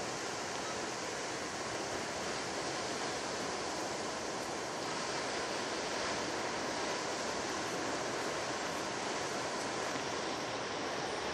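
Ocean surf breaking and washing up on a sandy beach: a steady, even rush of waves.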